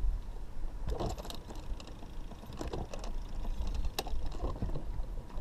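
Wind rumbling on the microphone, with a scattered run of light clicks and knocks and one sharper click about four seconds in.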